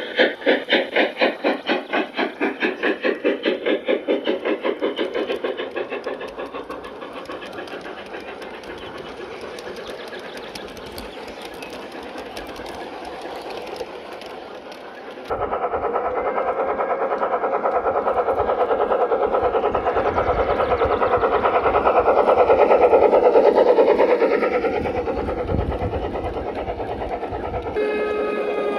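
A G-scale garden railway steam locomotive chuffing in a fast, even rhythm that fades away over the first few seconds. After a sudden change about fifteen seconds in, a model train runs steadily on the track, louder about two-thirds of the way through and then easing off.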